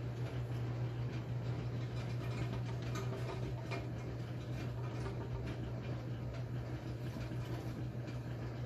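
1957 Blackstone 350 automatic washer running with a steady motor hum and a few faint, scattered clicks.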